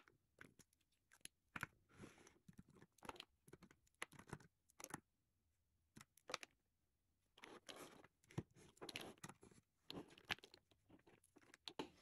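Faint, scattered clicks and taps of lipstick cases being lifted and set down on a wooden tabletop, with a few short sliding scrapes about two-thirds of the way through as they are pushed into a row.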